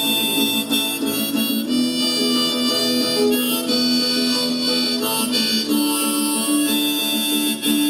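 Harmonica playing long held notes over acoustic guitar, the instrumental intro of a slow song.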